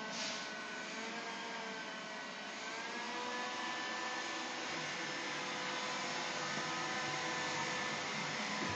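iRobot Scooba 230 scrubbing robot running: a steady motor whir with a faint whine that drifts gently up and down in pitch.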